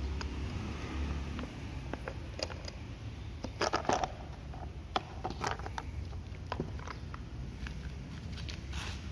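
Plastic clicks and clattering as the air filter cover of a Makita EK7651H power cutter is taken off and the filter element lifted out, loudest in a short burst of clatter about three and a half seconds in, with a sharp click a second later.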